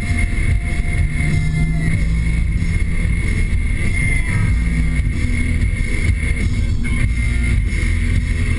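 Cabin engine and road noise from a 2013 Nissan Sentra SR under way, a steady low rumble as its four-cylinder is held up in the revs by the CVT. Music plays over it.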